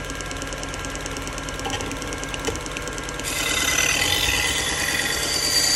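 AMK-75 belt sharpener, driven by a sewing-machine-type motor, running a felt belt; about three seconds in, a knife edge is laid on the belt and a hiss joins the motor's hum. This is the felt-belt deburring step, stripping the last thin burr from the edge.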